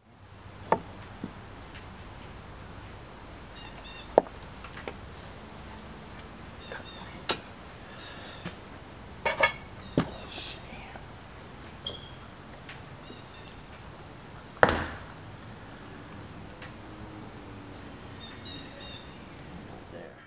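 Outdoor background with insects chirping steadily, broken by a dozen or so scattered sharp knocks and clicks of wood and tools being handled; the loudest knocks come about 4 seconds in and again near 15 seconds.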